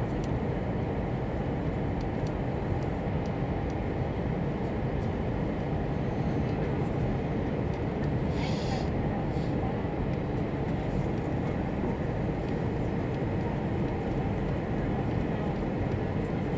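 Airbus A320 cabin noise on final approach: a steady low rumble and roar of the engines and airflow heard from inside the cabin. A short hiss cuts in about halfway through.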